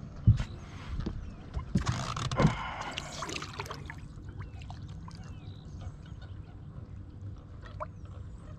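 A few knocks against a boat, then water splashing for a second or two, about two seconds in, settling into gurgling and trickling water.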